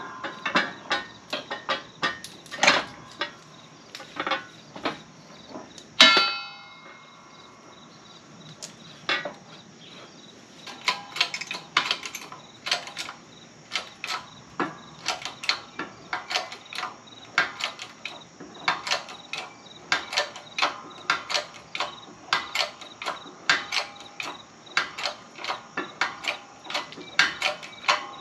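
Repeated sharp metal clicks from tools working a press to push the wheel hub into a newly installed wheel bearing. About six seconds in there is one ringing metal clang.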